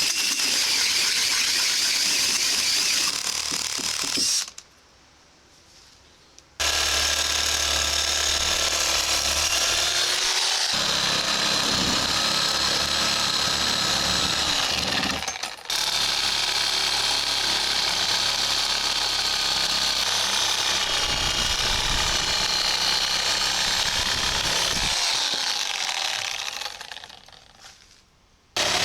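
Angle grinder grinding a steel train rail, running with a steady high whine. It stops for about two seconds early on, dips once mid-way, and winds down near the end.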